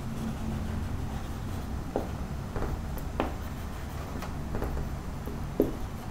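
Marker pen writing on a whiteboard: a handful of short, sharp strokes and taps of the tip against the board, over a steady low room hum.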